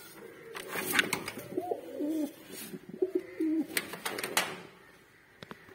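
Domestic pigeon cooing: a few low, wavering coos through the middle, with several sharp rustles or knocks around them.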